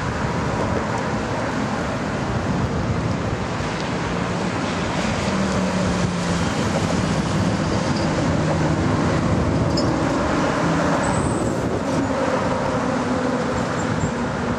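Steady road traffic with fire trucks and cars driving past. Their engines make a low drone over the tyre noise.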